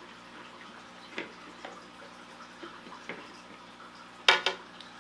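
Plastic parts of a brine shrimp hatchery being handled: a few light clicks and taps, then a sharper cluster of plastic clicks near the end.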